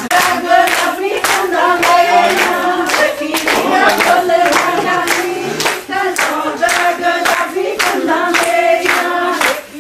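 Group of voices singing Punjabi boliyan in chorus over steady hand clapping, about two claps a second, dipping briefly near the end.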